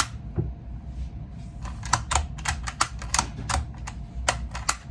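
Bolt action of a Thompson Center Compass .22-250 rifle being worked by hand: after about a second and a half, a quick irregular run of sharp mechanical clicks, several a second.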